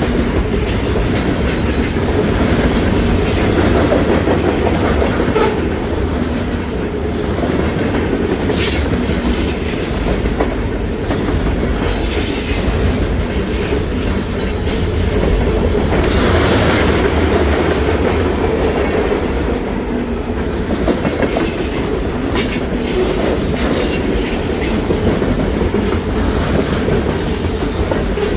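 Freight train cars rolling past, their wheels clicking and clacking over rail joints over a steady low rumble.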